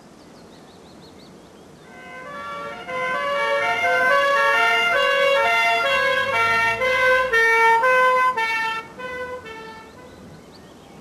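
A melody of short, bright chiming notes that step up and down in pitch, several at a time. It starts about two seconds in, swells, and fades out near the end.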